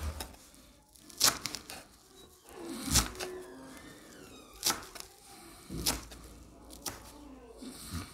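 Kitchen knife chopping fresh coriander on a wooden cutting board: sharp knocks of the blade striking the board every second or so at an uneven pace, with the cut leaves crackling.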